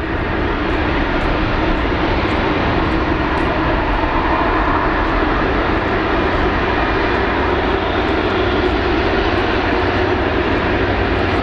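Jet airliner engines running, a loud steady noise that does not rise or fall.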